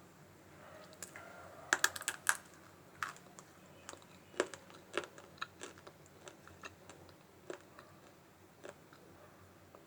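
Dry Multani mitti (fuller's earth clay) being bitten and crunched: sharp, crisp crackles, a quick cluster about two seconds in, then scattered crunches that thin out towards the end.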